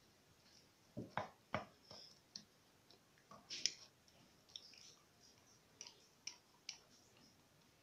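Faint scattered clicks and soft knocks of a silicone spatula and a glass against a metal cake tin while chocolate topping is spread over a cake. A few knocks come close together about a second in, with a sharper click a little later.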